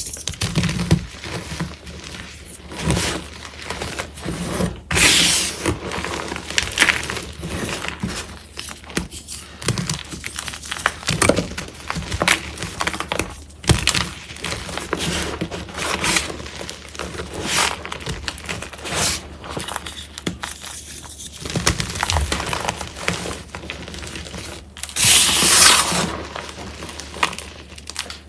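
Reformed gym chalk blocks crunching and cracking close to the microphone, in irregular sharp crunches. There is a longer, louder gritty crunch about five seconds in and another near the end.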